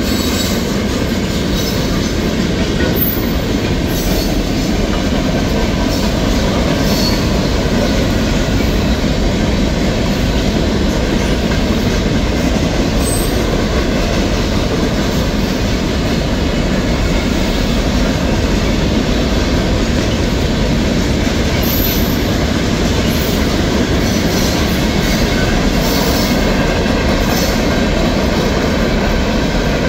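Freight train cars (tank cars and hoppers) rolling steadily past: a continuous loud rumble and clatter of steel wheels on the rails that holds an even level throughout.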